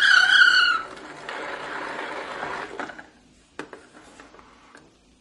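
See 'n Say "The Farmer Says" plastic talking toy: the end of a pitched recorded call from its speaker stops under a second in. Then its mechanism makes a whirring rattle for about a second and a half. A few sharp plastic clicks follow as the pointer is turned to a new animal.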